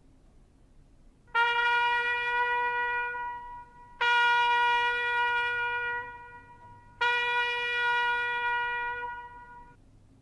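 Three long horn blasts on one steady pitch. Each starts suddenly and dies away over about three seconds, one after another.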